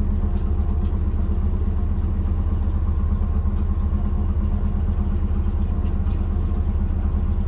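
Turbocharged Subaru Forester GT flat-four engine idling steadily, heard from inside the cabin, with an even low pulse. It is running lean at idle, with the air/fuel gauge reading around 16 to 17.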